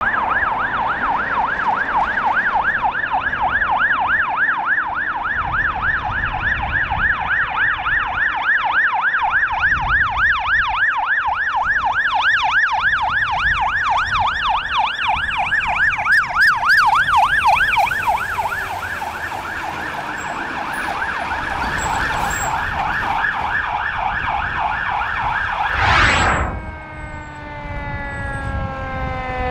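Fire engine siren in a fast yelp, warbling up and down about four times a second as the engine approaches, then going steadier. About 26 seconds in, a sudden loud blast as it passes, after which the siren's pitch slides slowly downward.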